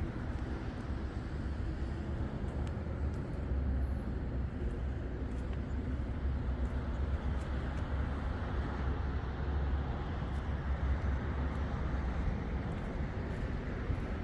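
A vehicle engine running at a steady idle, a deep low rumble with no change in pace.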